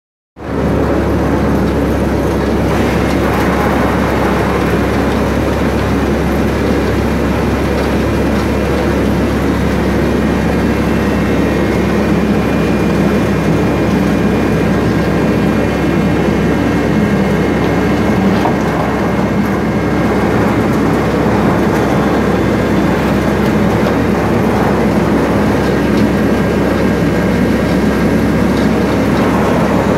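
Machinery running steadily: a continuous loud mechanical rumble with a low hum and faint high whine.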